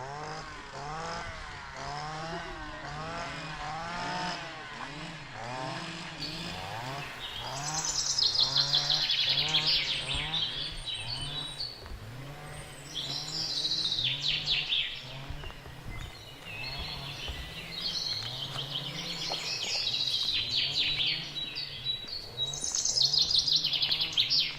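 Small songbirds singing: several bright, rapid trills from about seven seconds in, over a low, evenly repeating rise-and-fall sound that keeps going underneath.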